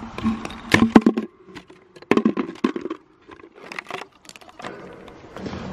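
A thin plate of ice, about a quarter inch thick, cracking and clinking against a plastic bucket as it is broken up and tipped out, in several short clusters of sharp knocks and crackles.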